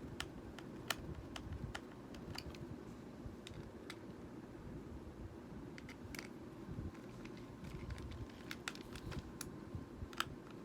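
Irregular light clicks and taps of a small screwdriver and hard plastic parts being handled as a toy RC car's battery compartment cover is screwed shut, over a faint low steady hum.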